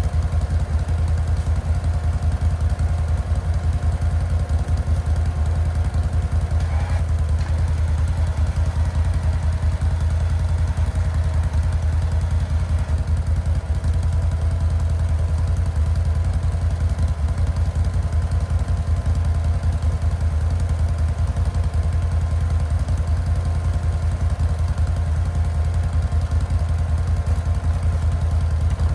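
Four-wheeler (ATV) engine running steadily at low revs.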